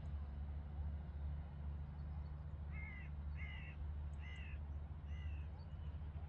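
A crow cawing four times, a little under a second apart, starting about halfway through, over the steady low rumble of a taxiing jet airliner's engines.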